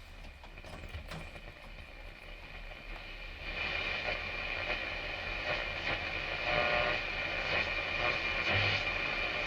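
Static hiss from a 1939 Zenith 9S367 'Zephyr' tube radio tuned between stations. The hiss grows louder about three and a half seconds in, with a few faint whistling tones in it.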